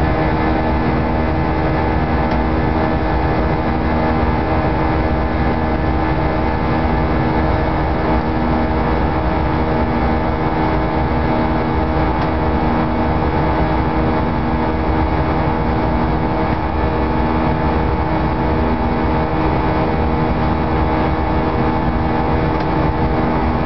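Airbus A320 jet engines and rushing air heard inside the cabin during the climb after takeoff: a steady drone with several steady humming tones over a low rumble.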